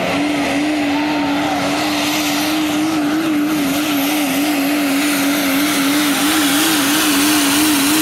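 Dodge Ram diesel pull truck's engine running flat out under load while pulling the sled, black smoke pouring from its stack. Its note holds at one steady pitch and starts to waver up and down about three seconds in.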